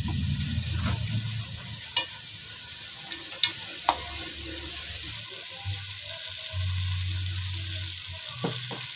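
Chopped bacon sizzling as it fries in melted butter in a pot, stirred with a wooden spatula that knocks sharply against the pot a few times.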